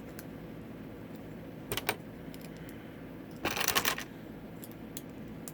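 Plastic Lego pieces clicking and rattling as they are handled: a few scattered clicks, a short cluster just under 2 s in, and a denser half-second rattle about 3.5 s in.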